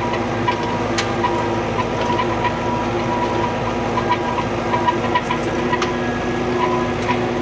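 Old tractor engine running steadily, with a few light rattles and clicks.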